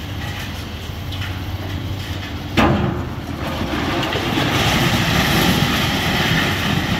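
Komatsu PC490 hydraulic excavator demolishing a brick and concrete building: the diesel engine runs steadily, a sharp crash comes about two and a half seconds in, then masonry and concrete rubble crumbles and falls continuously.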